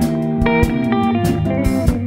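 Live soul-jazz from a jazz organ combo playing a blues. Lead notes sound over a low bass line, with cymbal strokes keeping the beat.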